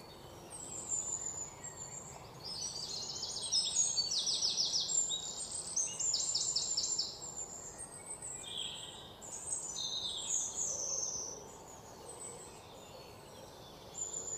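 Birds chirping and singing, high-pitched, with quick trills of rapidly repeated notes in the first half and scattered calls later, over faint background noise.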